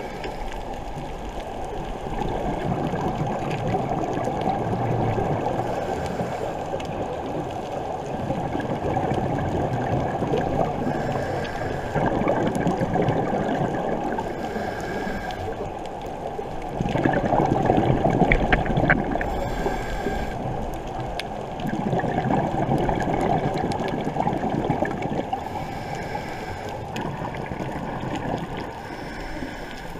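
Underwater water noise around a scuba diver: a steady rushing and gurgling wash that swells and eases every few seconds, loudest a little past the middle.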